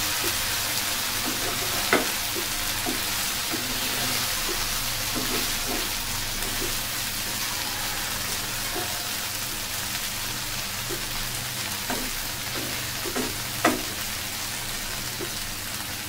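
Chopped okra sizzling in oil in a frying pan while a wooden spatula stirs it, with two sharp knocks, one about two seconds in and one near the end.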